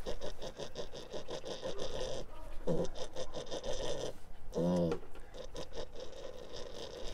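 Piglet restrained for castration, breathing in rapid pants of several breaths a second, with two short low grunts, the second a little under five seconds in.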